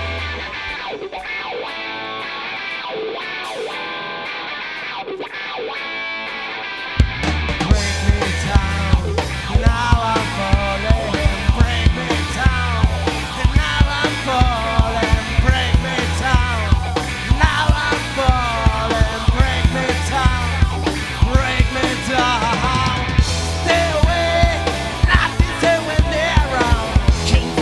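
Rock band playing live: an electric guitar plays alone at first, then drums and bass guitar come in together about seven seconds in and the full band carries on at a driving rock beat.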